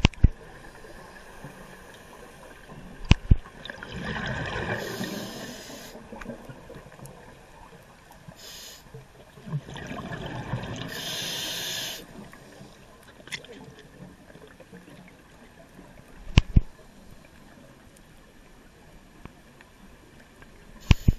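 Scuba diver breathing underwater through a regulator: two long rushes of exhaled bubbles, about four and ten seconds in, with a brief hiss between them, plus a few sharp clicks and knocks.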